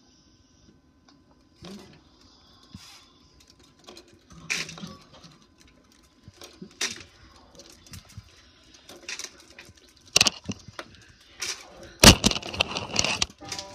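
Strands of a wooden bead curtain clacking and rattling as they are pushed aside: scattered light clicks at first, then a dense, loud clatter from about ten seconds in.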